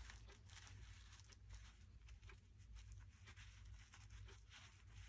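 Faint scratching and rustling as a thin metal pick works under the stitching of a small cotton fabric tab, with the cloth rubbing between the fingers in many short, soft scrapes over a low steady hum.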